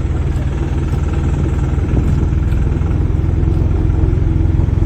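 A motor vehicle's engine running steadily: a low, evenly pulsing rumble.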